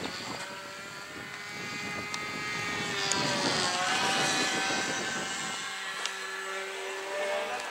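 Radio-controlled model airplane in flight, its motor a pitched whine that climbs in pitch and grows louder about three seconds in as it passes, then drops lower and steadies near the end.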